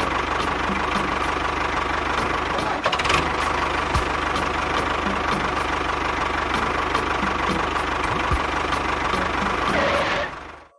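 Small engine running steadily with a low, even chug and an occasional knock. It fades out about ten seconds in.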